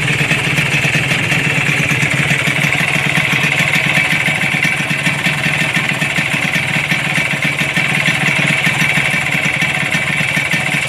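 Kawasaki Ninja R's two-stroke single-cylinder engine idling steadily and noisily, a sign of a blown, damaged engine.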